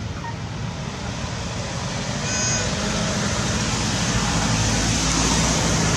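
Steady rushing background noise, like distant road traffic or wind, growing slowly louder, with one brief high chirp about two and a half seconds in.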